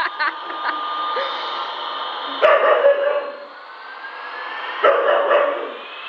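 Five-month-old husky puppy barking twice, about two and a half seconds in and again about five seconds in. Between and after the barks, the toy airplane's electronic whine rises steadily in pitch.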